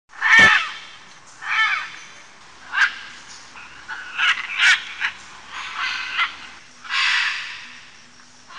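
A string of loud, harsh bird squawks, some short and some drawn out, played by an RC model bird's onboard MP3 sound system.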